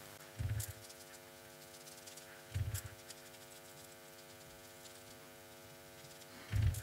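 Faint steady electrical hum, with three short, soft low thumps: about half a second in, two and a half seconds in, and near the end.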